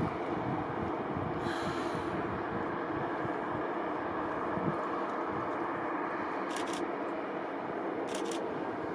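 Distant jet engines of a Boeing 747-400 freighter running steadily: an even rumbling rush with faint constant tones in it. Brief high ticks come twice near the end.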